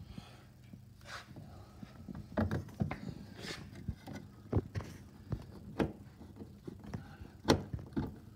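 A hand screwdriver driving a screw into a plastic interior door trim panel: scattered clicks and knocks of the tool against the plastic, the loudest near the end, over a faint steady hum.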